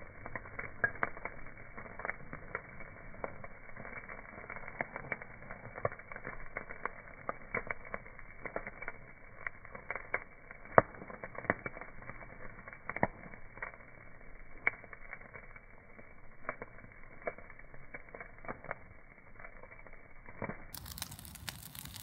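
Bonfire crackling: irregular sharp pops and snaps of burning wood over a steady rush of flame, with one much louder pop about eleven seconds in.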